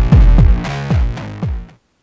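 Electronic background music with a deep drum-machine beat about twice a second, cutting off abruptly near the end.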